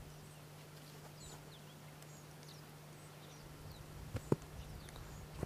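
Faint outdoor quiet with scattered short bird chirps over a steady low hum. Two sharp knocks come close together about four seconds in.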